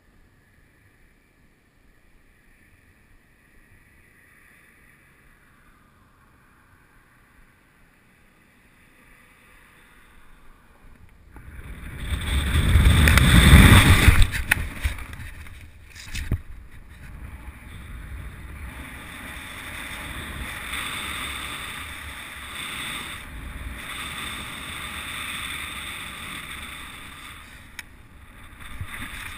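Wind rushing over a GoPro's microphone in a BASE jump from a bridge. Very quiet at first, then a rush that builds over a few seconds to its loudest in freefall and drops off sharply as the parachute opens, followed by steadier, quieter wind through the canopy ride.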